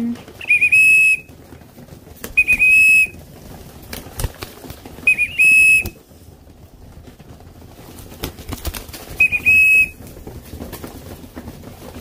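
A whistle blown four times in short blasts, each a couple of quick chirps and then a held high note, used to call young racing pigeons in to feed and train them to come when whistled.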